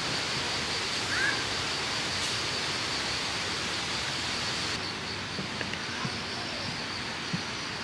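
Steady outdoor background hiss, with a faint high whine running through it; about five seconds in the top of the hiss drops away abruptly.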